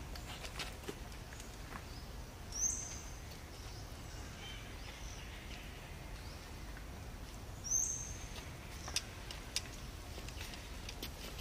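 Outdoor ambience with a steady low rumble and a bird giving a short high-pitched call twice, about five seconds apart, each dropping briefly and then holding; a few faint clicks near the end.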